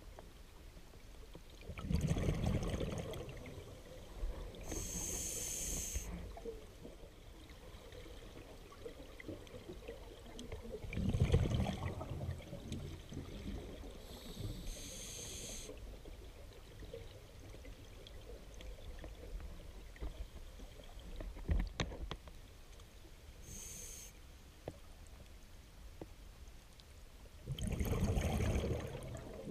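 Scuba diver breathing through a regulator underwater: a few slow breaths, each a hissing inhalation and a burst of bubbling exhaust bubbles, several seconds apart.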